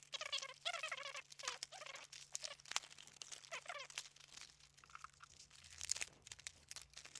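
Hands working open a spinnerbait's plastic and cardboard retail package: crinkling, crackling and scattered sharp clicks, with short squeaky chirps in the first half or so.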